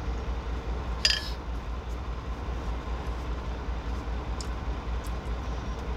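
A sip of soup slurped from a spoon about a second in, over the steady low rumble of the semi-truck's idling engine.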